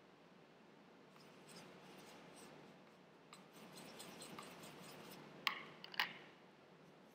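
Paintbrush scraping and dabbing in a well of a plastic paint palette as the paint is mixed, with a faint scratchy rubbing. Near the end come two sharp clicks about half a second apart, the loudest sounds.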